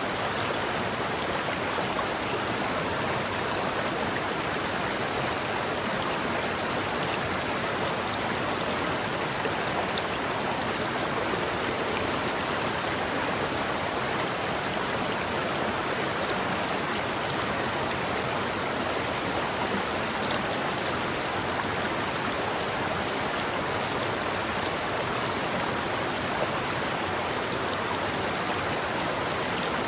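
River water flowing in a steady, even rush over rocks.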